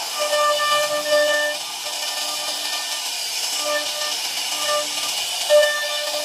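CNC router spindle running at speed while its bit cuts grooves into a wooden door panel: a steady hiss of the bit chipping through the wood under a high whine that fades in and out.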